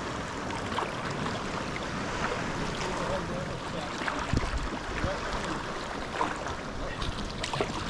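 Sea water splashing and lapping around a sea kayak as it is paddled, with scattered small splashes and drips.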